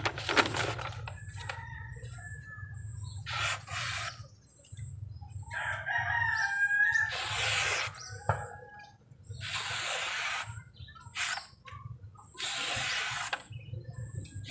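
A stainless knife blade ground from an old motorcycle brake disc slicing through a sheet of paper in several short scratchy strokes. The cuts run smoothly without snagging, the sign of a sharp edge. A rooster crows in the background about six seconds in.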